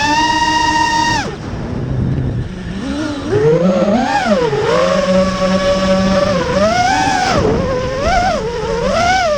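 FPV quadcopter's brushless motors whining, the pitch rising and falling with the throttle. The whine drops off about a second in, then climbs back and surges several times near the end.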